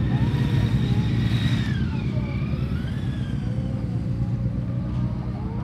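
A motorcycle engine running, steady and low, with its pitch falling about two seconds in.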